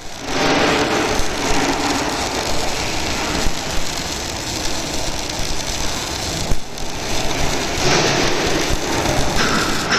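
Arc welding crackling steadily from a carriage-run weld, with a brief drop about six and a half seconds in.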